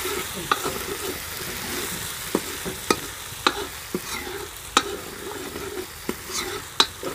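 Onion and garlic masala sizzling in hot oil in a wok (karahi) while being roasted, stirred with a long metal spatula that clinks and scrapes against the pan about once a second.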